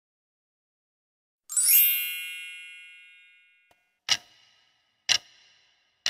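A bright chime sound effect rings out about a second and a half in and fades away over about two seconds. Then come two short clock-like ticks a second apart, a quiz timer counting down.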